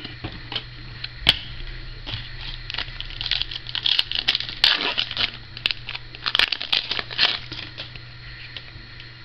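Foil wrapper of a 2010 Donruss Elite football card pack being torn open and crinkled: a run of short, sharp crackles, busiest in the middle.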